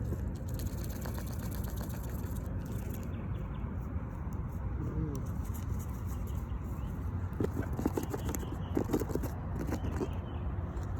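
Goose calling with a few short low honks, one gliding about five seconds in and a quick cluster around eight to nine seconds in, over a steady low rumble and light clicking of zipper pulls on a backpack.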